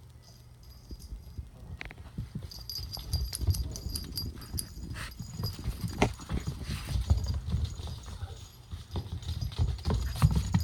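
Puppies' paws and claws pattering and scrabbling on a wood floor as they scuffle and play, with irregular thumps and a couple of sharp knocks. A small bell on a collar jingles faintly on and off from a few seconds in.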